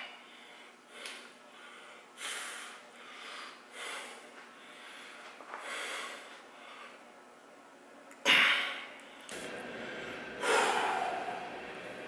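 A man breathing hard while straining to hold a flexed chest pose, a forceful exhale about every second. Near the end come two louder, harder exhales, the second with a short voiced groan that falls in pitch.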